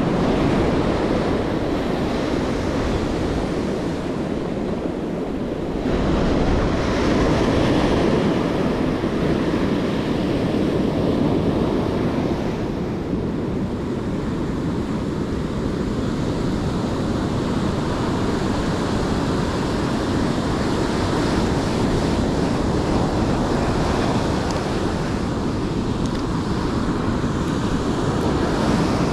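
Ocean surf breaking and washing in steadily, rising and falling in slow swells, with wind rumbling on the microphone.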